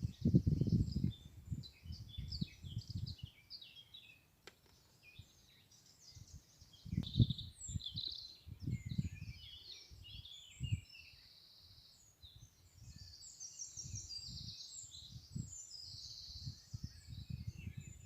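Several songbirds chirping and trilling, overlapping without pause. Wind gusts buffet the microphone in low rumbling bursts, loudest at the start and again about seven seconds in, and a longer stretch of even, sustained song comes near the end.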